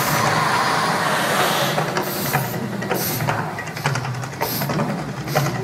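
Gas flame jets of a man-made volcano show firing in a loud, whooshing rush. A strong surge comes right at the start, then shorter surges follow.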